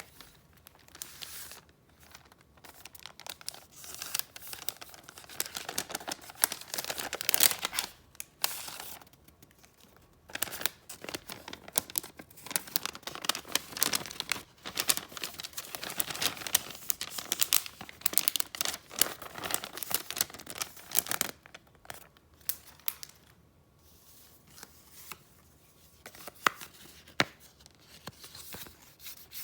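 Paper and gift wrapping being handled: dense, crackly rustling for about twenty seconds, then quieter, scattered handling with a few sharp clicks near the end.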